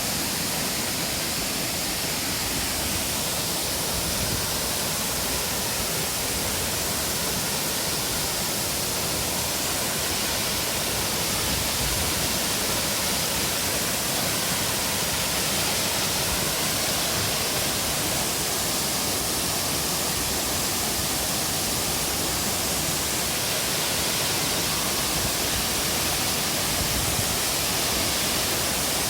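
Waterfall's falling water rushing in a steady, even noise.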